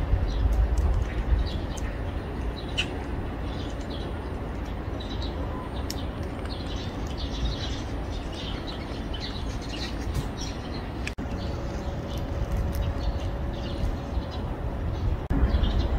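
Small birds chirping in short scattered calls over a steady low outdoor rumble.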